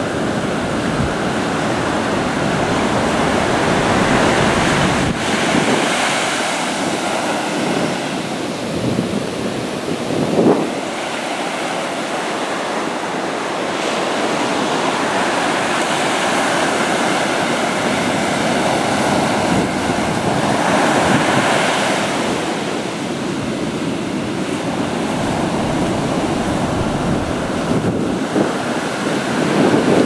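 Ocean surf breaking and washing up a sand beach, rising and easing in slow swells, with wind on the microphone.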